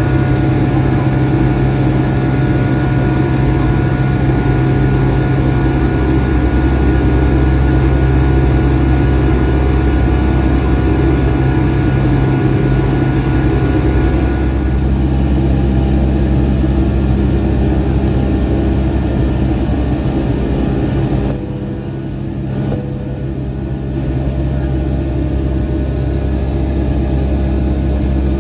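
Cabin noise of a Boeing 757-200 in the climb: its Rolls-Royce RB211 jet engines and the airflow make a loud, steady drone with several held tones. The higher part of the noise drops slightly about twenty seconds in.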